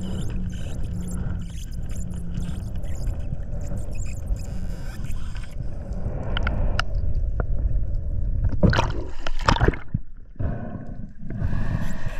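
Underwater water noise around a spearfisher's camera: a steady low rumble and gurgling as he swims, with a few louder splashy gurgling bursts about nine seconds in.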